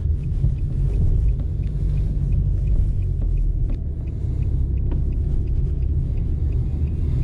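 Steady low rumble of a car's engine and road noise heard from inside the cabin as the car drives, with faint regular ticking about twice a second.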